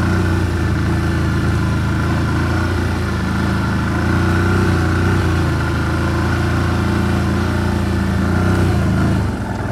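Car engine running steadily with road noise while driving, its low hum even throughout and easing off slightly near the end.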